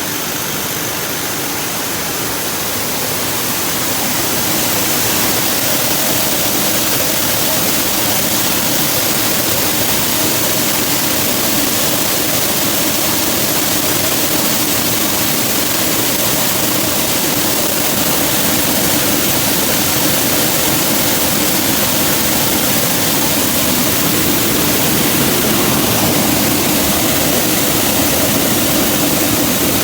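Rice combine harvester running, a dense steady noise of engine and machinery with a faint steady hum; it gets louder a few seconds in and then holds.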